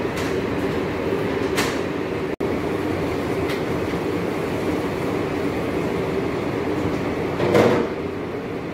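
Steady mechanical noise with a low hum, broken by a few short louder sounds, the loudest near the end; it drops out for an instant about two and a half seconds in.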